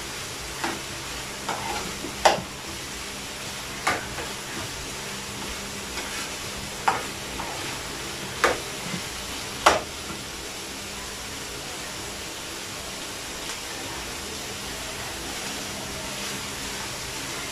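Ground meat sizzling steadily in a frying pan as it is sautéed, stirred with a metal spoon. The spoon clacks sharply against the pan about seven times in the first ten seconds, then only the sizzle goes on.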